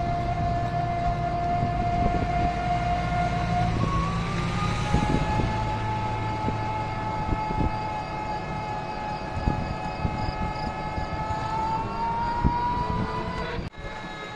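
Motor whine of the vehicle the camera is riding in, with road rumble beneath. The whine steps up in pitch about four seconds in and rises again near the end as the vehicle speeds up, then drops out briefly just before the end.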